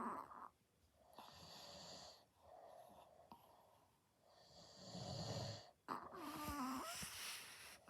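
Sleeping chihuahuas snoring, a rough breath every one to two seconds. Near the start and again about six seconds in, a higher, wavering pitched sound rises out of the snoring.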